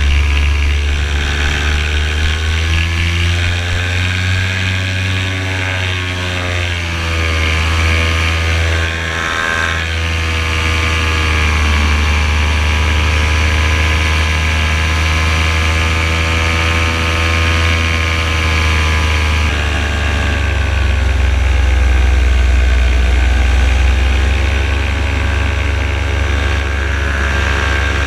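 Paramotor engine and propeller running in flight, its pitch easing down and back up a few times as the engine speed changes.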